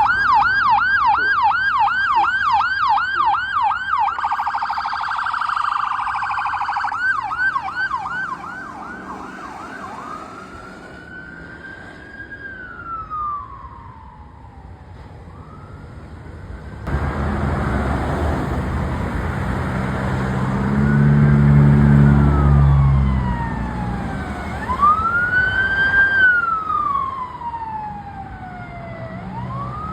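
Emergency vehicle electronic sirens on a response run: a fast yelp of about three to four sweeps a second, interrupted for a few seconds by a harsher, smeared tone, then settling into a slow rising and falling wail. A vehicle engine passes close under the wail, loudest a little past the middle.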